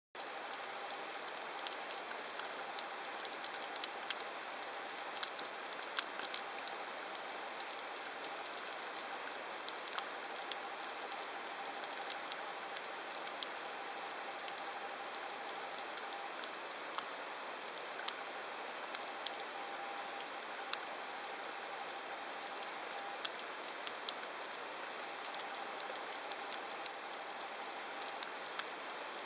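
Underwater crackle heard through the water over a rocky seabed: a dense, steady patter of tiny clicks and snaps, with a faint thin hum that comes and goes several times.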